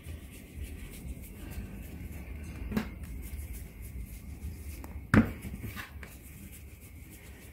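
Hands rolling soft dough balls on a floured tabletop, a faint rubbing, with a few light knocks; the loudest, about five seconds in, as a dough ball is set down into the bowl.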